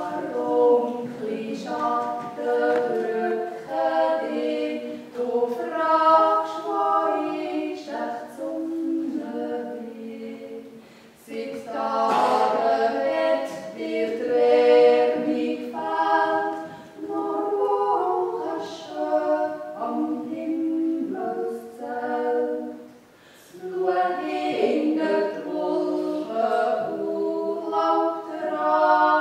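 Two women singing a Swiss folk song together in harmony, unaccompanied, in long sung phrases with short breaks about 11 and 23 seconds in.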